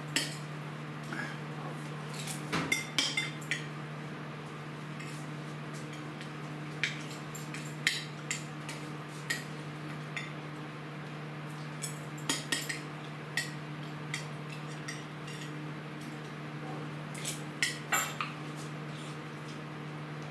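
Scattered clinks and knocks of dishes and utensils being handled on a kitchen worktop, bunched in short runs about three seconds in, around twelve seconds and near eighteen seconds, over a steady low hum.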